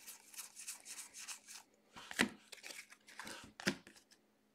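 Football trading cards handled and flipped through by hand: soft scattered rustles and clicks of card stock and plastic sleeves sliding and tapping, with two sharper clicks past the middle.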